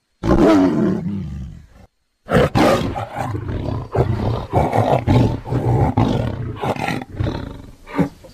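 A person snoring loudly and roughly, a sound close to an animal's roar: one long snore falling in pitch, a brief cut to dead silence, then a run of short rasping snores in quick succession.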